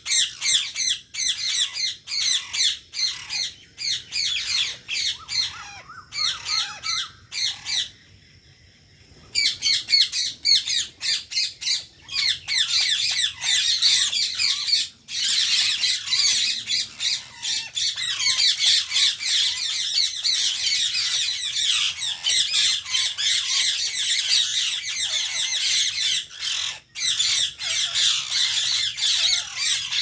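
Indian ringneck parakeets squawking and chattering in rapid, shrill, high calls, with a short pause about eight seconds in.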